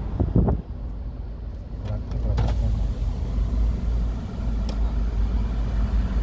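Steady low rumble of road and engine noise as heard inside a moving car on a highway, with a few brief clicks.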